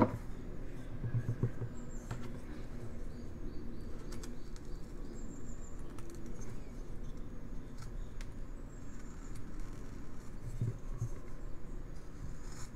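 Carving knife paring thin cuts from a basswood block, soft scraping with small scattered clicks. A brief knock at the very start.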